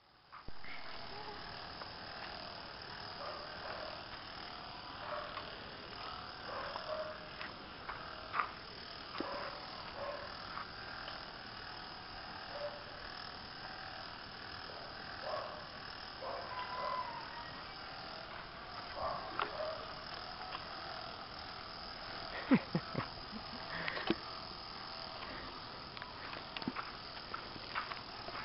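Steady insect buzzing from a sunny yard, fairly quiet, with scattered short faint chirps and a few sharp clicks about three quarters of the way in.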